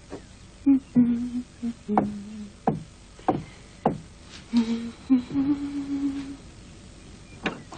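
A woman humming a tune in short held notes, with sharp knocks in between, most of them roughly every half second in the first half and one more near the end.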